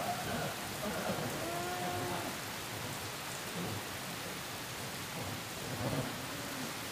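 Steady rain falling, with a brief low animal call about a second and a half in.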